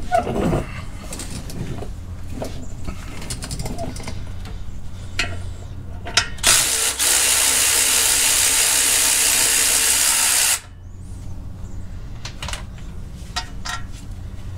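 Power ratchet run steadily for about four seconds, starting and stopping abruptly, as it backs out a clutch pressure plate bolt. Light metallic clinks of tools and bolts come before and after.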